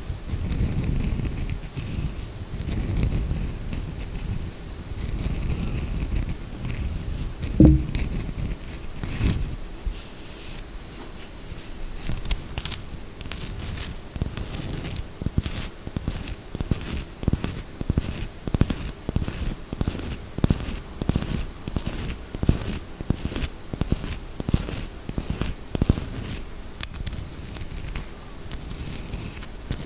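Close-miked handling of soap and its packaging: rustling and crinkling for the first several seconds, one loud knock about eight seconds in, then a long run of quick, crisp clicks, several a second, from tapping and scratching.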